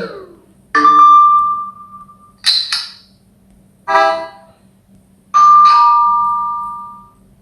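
Samsung Galaxy S25 Plus notification tones played slowed down, one after another: four short electronic chimes. The first and last hold a ringing tone that fades out over a second or two, and the second is two quick bright notes.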